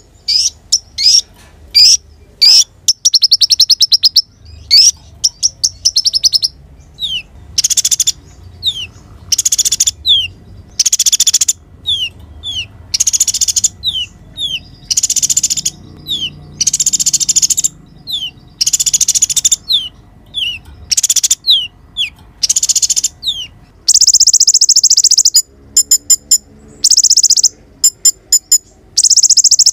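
Crimson sunbird (kolibri konin) singing vigorously: loud bursts of rapid, very high trills, each about half a second, alternating with short falling notes, over and over. Near the end comes a longer unbroken trill, then a run of quick clipped notes.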